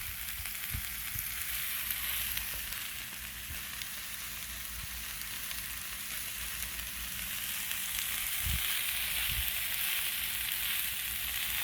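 Potatoes, vegetables and sausage sizzling as they fry in a pan, a steady crackle with a few soft knocks.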